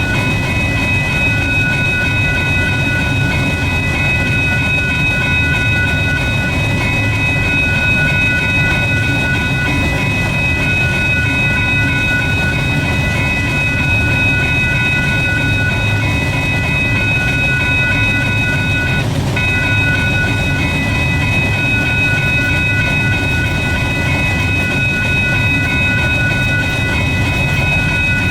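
A train rolling past on the rails with a steady low rumble and wheel clatter. Several steady high-pitched tones ring over it throughout and drop out briefly about two-thirds of the way through.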